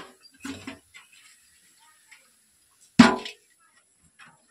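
A single loud bang about three seconds in, dying away with a short ring.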